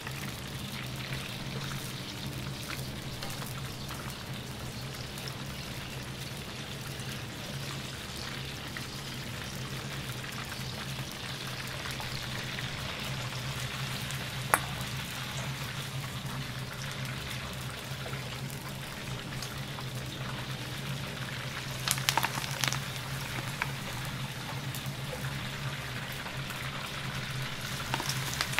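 Battered shrimp deep-frying in hot oil in a wok: a steady sizzle and bubbling over a steady low hum. There is a sharp click about halfway and a few sharp knocks about three-quarters of the way through.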